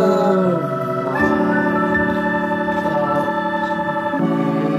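Background music of held, organ-like chords, changing about a second in and again near the end.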